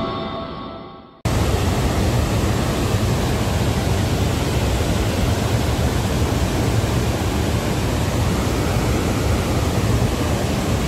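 The tail of intro music fades out, and about a second in it cuts to the steady, dense rush of a large waterfall, Athirappilly Falls, with water pouring over a wide rock face.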